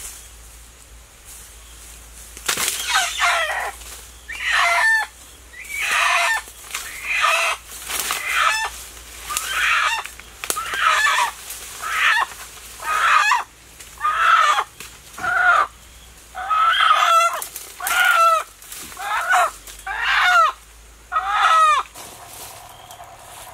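A chicken squawking loudly in alarm while it is grabbed and held by hand, about one call a second, each call sliding down in pitch; the calls stop near the end.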